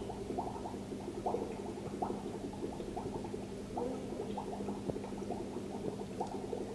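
Aquarium water bubbling and gurgling continuously over a steady low hum, as from the turtle tank's filter running.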